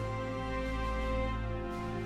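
Soft background music with held notes over a low sustained bass.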